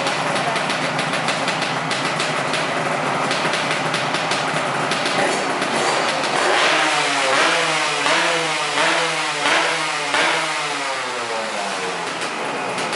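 Yamaha RD 135 two-stroke single-cylinder motorcycle engine running steadily, then revved up and down in a series of quick throttle blips from about halfway through, settling back toward idle near the end.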